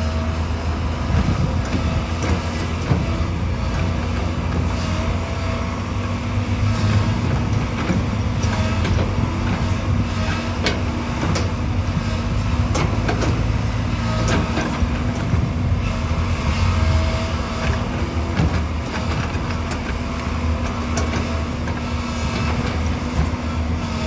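Hydraulic excavator working: its diesel engine runs steadily under load, with scattered sharp metallic clanks and knocks.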